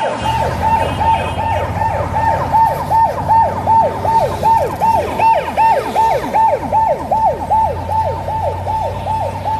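Emergency vehicle siren on a fast yelp, each wail dropping sharply in pitch and repeating about three times a second, over a low steady hum.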